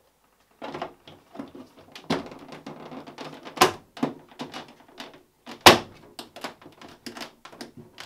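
Plastic clicks, knocks and rattles as the control panel of a Matsui portable air conditioner is fitted back into the top of its plastic casing and pressed into place. The two loudest knocks come about three and a half and five and a half seconds in.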